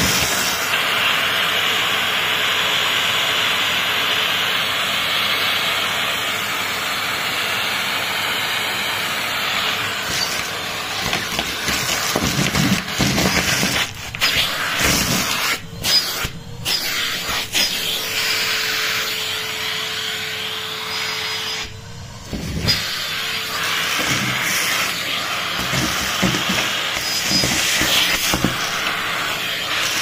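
Numatic Henry canister vacuum cleaner running, its hose nozzle sucking over carpet among scattered debris. The suction sound dips and changes several times, with a steady whistle for about six seconds in the middle.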